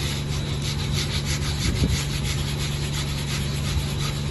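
Hand tool scraping the cleaned end of a steel rail in short, even strokes, about three a second: the rail ends are being cleaned before thermite welding.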